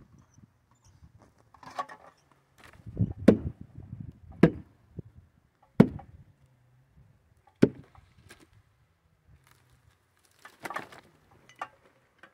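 Axe blows at the base of a standing tree: four loud, sharp strikes about a second and a half apart, with a few fainter knocks and some rustling through slash before and after.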